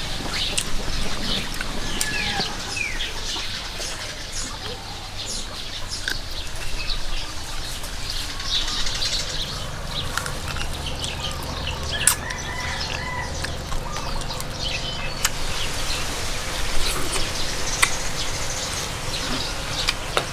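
Birds chirping over a steady background, with scattered light clicks.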